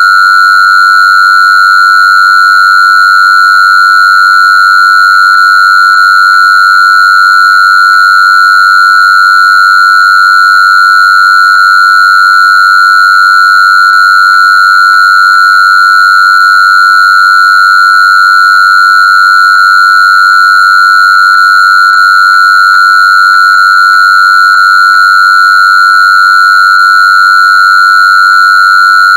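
A loud, steady, high-pitched electronic sine tone held unchanged, with fainter higher overtones above it.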